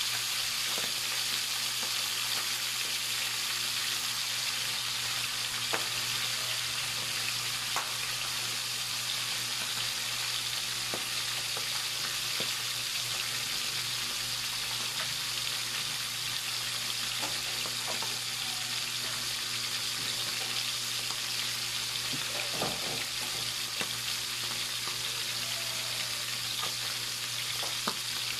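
Salmon head pieces frying in hot oil in a pan: a steady sizzle with scattered pops and crackles.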